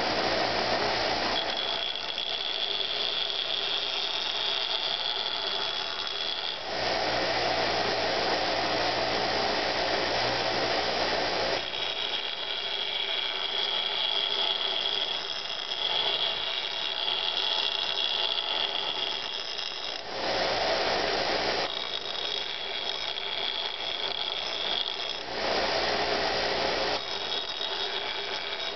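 Bench grinder running steadily while the steel edge of a rusty hatchet head is pressed against the wheel in several passes of a few seconds each, each pass bringing a high whine over the motor's running noise.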